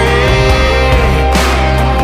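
Background music: a song with guitar and a steady low bass, in an instrumental stretch between sung lines.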